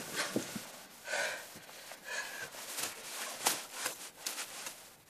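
A person breathing hard in short, irregular gasps, out of breath from climbing a stone wall.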